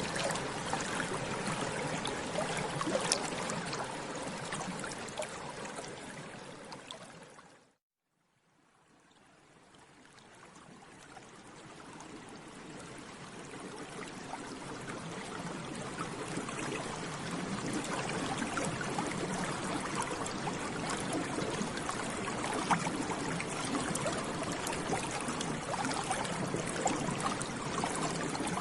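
Bubbles burbling up through water, a dense run of small pops and gurgles. It fades out to silence about eight seconds in, then fades slowly back in.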